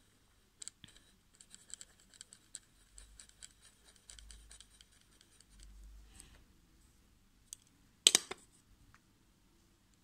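Pencil scratching on paper in quick, short strokes for the first half, then a single loud sharp knock about eight seconds in.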